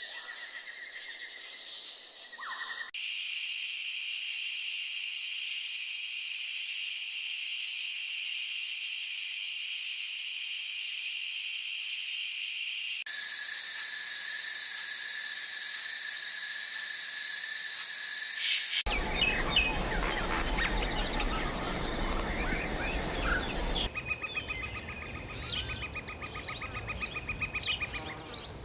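Tropical forest ambience: a steady chorus of insects droning in several high bands, with bird chirps. The background changes abruptly four times, and from about two-thirds of the way through it turns to a noisier rustle with short chirps and ticks.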